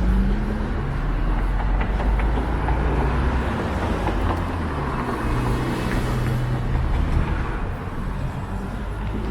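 City street traffic: cars passing with engine hum and tyre noise, swelling with a closer pass around the middle, over a steady low rumble.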